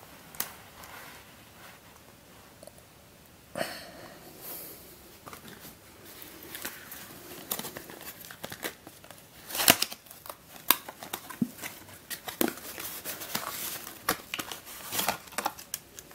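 Small cardboard box of a twisty puzzle being opened by hand and the puzzle taken out: rustling and crinkling with scattered sharp clicks and taps, starting a few seconds in, the loudest click near the middle.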